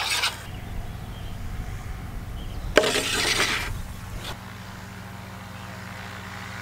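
A spoon stirring berry sauce in a steel saucepan on a portable gas stove stops. About three seconds in, the metal pan clanks sharply and scrapes for about a second as it is handled, followed by a faint click, over a steady low hum.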